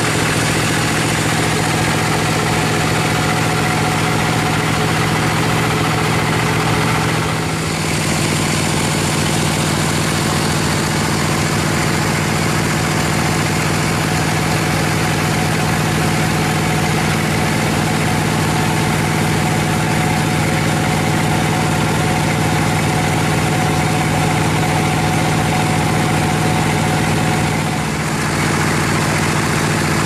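Vertical bandsaw sawmill running: a steady machine drone with a constant hum. It dips briefly about seven seconds in and again near the end.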